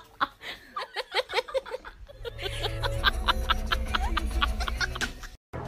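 A person snickering and laughing in short bursts, then from about two seconds in a music track with a quick steady beat over low bass, which cuts off suddenly near the end.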